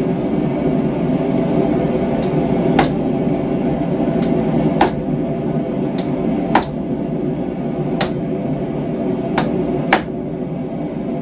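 Hand hammer striking steel on an anvil with sharp ringing blows, about nine of them at uneven gaps of roughly a second. Under them runs the steady rush of the propane forge's burner.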